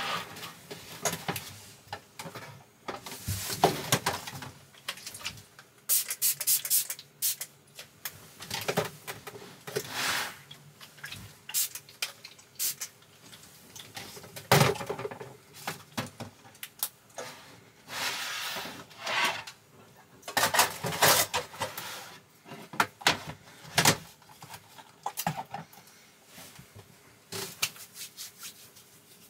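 Irregular clicks, knocks and short rustling noises of objects being handled and set down, scattered throughout with brief pauses between them.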